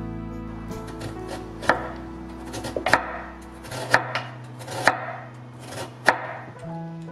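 Chef's knife slicing through Korean radish and knocking on a wooden cutting board: about five sharp chops roughly a second apart, with a few lighter cuts between.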